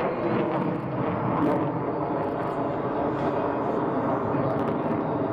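Lockheed Martin F-22 Raptor's twin F119 turbofan engines as the fighter maneuvers overhead: steady jet noise with no letup.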